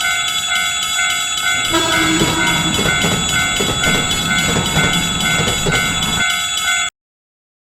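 Japanese railroad crossing warning bell ringing steadily with a pulsing tone while a train rushes past with a clattering rumble. The rumble fades about six seconds in, and everything cuts off suddenly just before the end.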